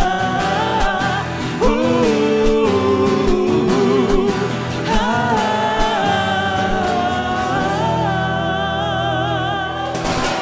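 Song outro: long wordless sung notes with vibrato over an instrumental backing with a drum beat. The drums fall away about eight seconds in, leaving the held notes and a steady low accompaniment.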